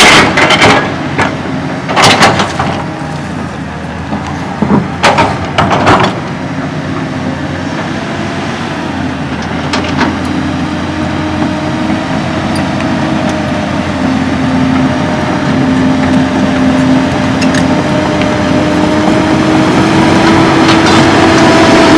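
Cat hydraulic excavator's diesel engine and hydraulics running, with several loud clanks in the first six seconds as the machine works, then a steady engine drone that grows louder and rises slightly in pitch as it travels closer on its tracks.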